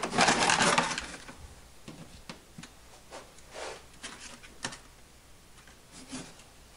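Foam model airplane being slid and handled on a workbench: a loud rubbing scrape of about a second at the start, then a handful of short, lighter rubs and scrapes.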